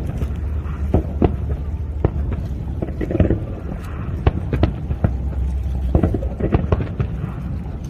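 Fireworks going off: irregular sharp bangs, at times several close together, over a steady low rumble.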